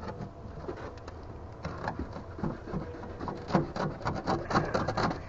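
Old carpet being torn up from a jon boat's floor: a run of quick, irregular crackling rips that grows busier about two seconds in.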